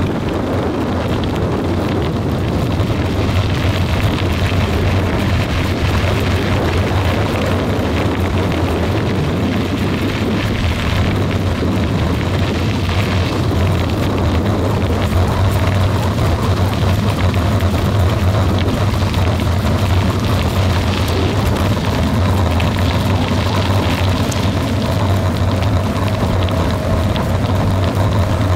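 Steady wind rumble on the microphone mixed with tyres rolling over a gravel road.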